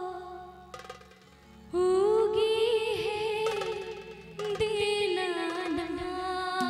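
Woman singing a Bhojpuri Chhath devotional song into a microphone in long, wavering held notes. A held note fades out about a second in. The singing comes back loudly just before two seconds in, breaks off briefly past four seconds, then goes on.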